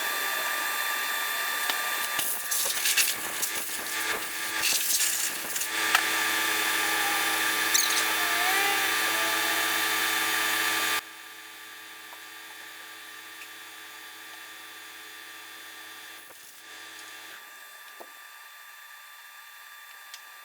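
A power tool runs steadily for about eleven seconds, then cuts off suddenly, leaving a faint steady hiss.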